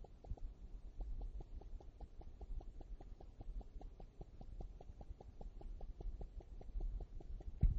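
Faint, even ticking, about five ticks a second, over a low hum.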